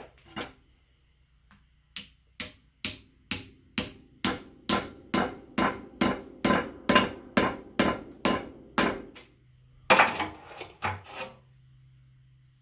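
Hammer blows driving a glued hardwood wedge into the top of a new handle seated in a sledgehammer head: a steady run of about eighteen sharp strikes, roughly two to three a second and speeding up slightly. Near the end comes a brief rougher noise.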